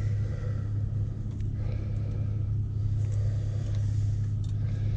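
A steady low machine hum runs underneath, with a few faint clicks and rustles from hand work with pliers on wiring.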